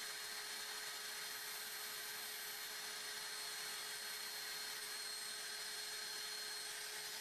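A small handheld vacuum cleaner running steadily with a high whine, its nozzle held to the vacuum port of a mold press. Its suction is too weak to pull the softened plastic sheet down onto the mold, which the crafter finds once it is switched off.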